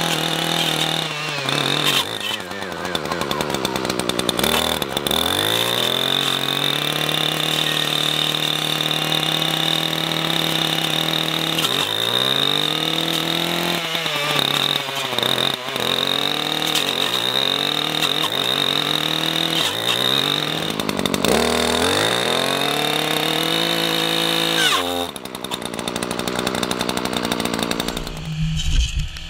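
Echo SRM-3020T two-stroke brush cutter running at full throttle with a Forester 9-inch carbide-tipped chainsaw-tooth blade. The engine bogs down and picks back up several times as the blade bites into chokecherry stems, then drops back toward idle near the end.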